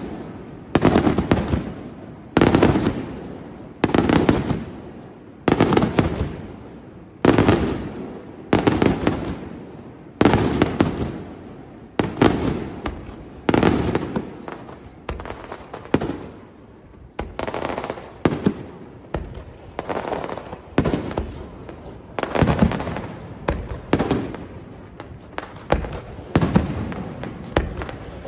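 Aerial firework shells bursting in steady succession, a sharp bang about every second, each followed by a fading echo. From a little past halfway the bursts come smaller and closer together.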